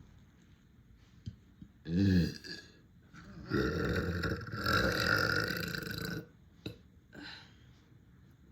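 A person burping deeply: one short burp about two seconds in, then a long, drawn-out belch lasting nearly three seconds.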